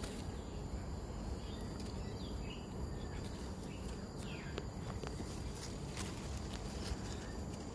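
Outdoor background: a steady low rumble with a few faint, short bird chirps now and then.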